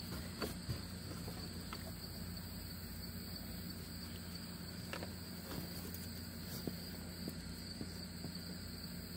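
A steady outdoor chorus of chirring insects, with a few faint clicks and taps of hands working among the ATV's engine parts.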